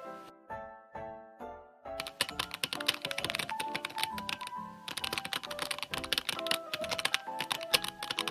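Rapid typing clicks, in fast runs starting about two seconds in with a brief break midway, over background music with pitched notes.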